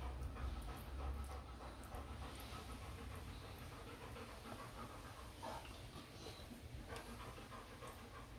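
A Hungarian Vizsla dog panting quietly and steadily, with a few faint clinks of a metal spoon spreading mashed pumpkin on a plate.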